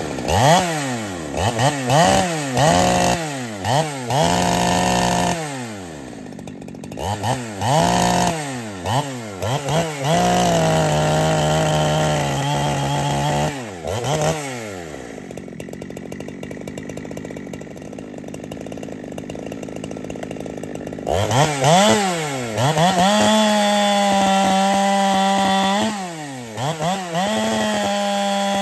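Husqvarna 372 clone chainsaw's two-stroke engine revved in quick blips, about one a second, held at full throttle for a few seconds at a time. It drops back to idle for several seconds in the middle, then revs up again and runs steadily at high speed near the end.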